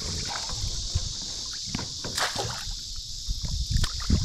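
Water splashing and sloshing as a wire crab drop net is dropped back into the water beside a small boat, with scattered knocks and thumps on the boat. A steady high insect drone runs underneath.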